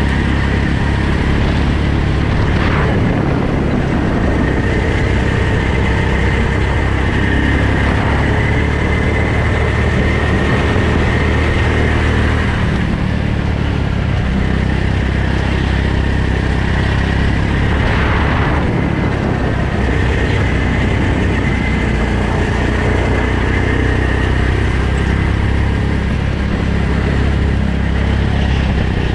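Go-kart engine running continuously, its pitch rising and falling with the throttle, under a steady rush of wind noise.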